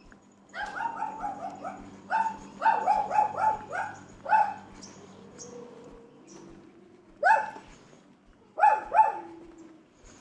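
A dog barking: two quick runs of about half a dozen barks each, then a pause and three more single barks near the end.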